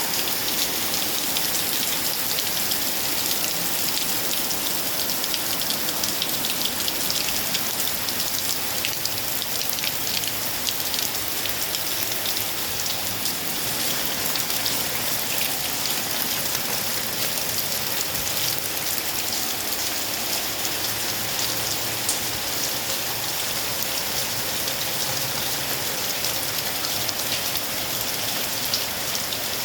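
Heavy rain pouring steadily, a dense even hiss of drops striking surfaces.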